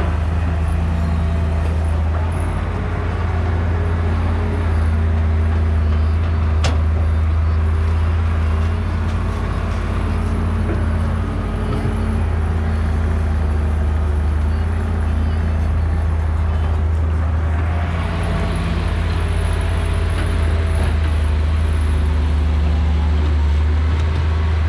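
Diesel engine of a JCB tracked excavator running steadily under load while it digs and slews, with a deep, even hum. The engine and hydraulic noise grows brighter and fuller about two-thirds of the way through as the machine works harder.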